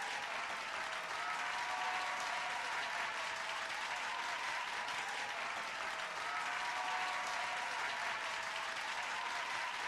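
Audience applause: a large crowd clapping steadily and densely without letting up.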